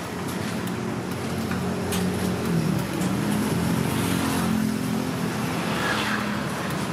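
Street traffic: a motor vehicle's engine running close by, with a steady hum that grows louder for a few seconds in the middle as it passes.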